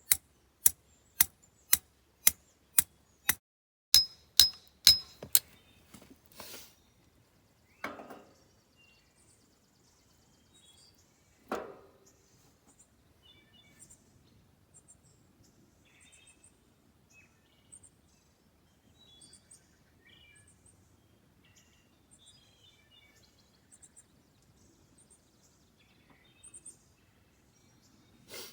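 Hammer blows on steel rake parts: about a dozen sharp, ringing strikes at roughly two a second for the first five seconds or so, then a couple of single knocks. Birds chirp faintly afterwards.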